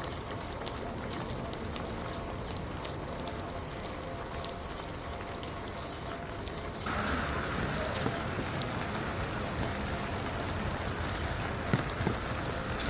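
Steady rain falling, with scattered drops ticking on hard surfaces. About seven seconds in the sound changes abruptly and grows louder, with a few sharp knocks.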